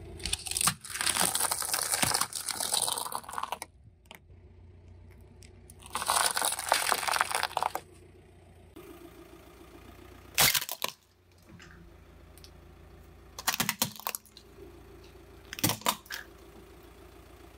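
Car tyre rolling over plastic cups packed with dry penne pasta: two long stretches of crackling crunch as the plastic splits and the dry pasta snaps. Then a few short, sharp cracks as a plastic toy breaks under the tyre, with a low engine hum between them.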